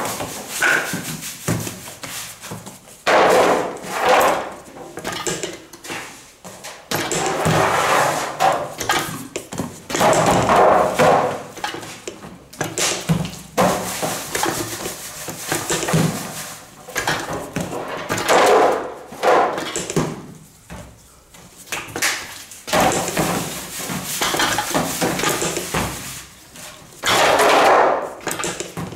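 Sweet bread dough being divided by hand: pieces torn off the mass, weighed in a metal scale pan and tossed onto a floured stainless-steel table, giving dull slaps and knocks every two to three seconds.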